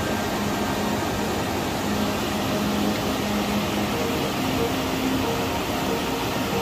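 Steady rush of white water tumbling over the rapids and falls of a mountain creek.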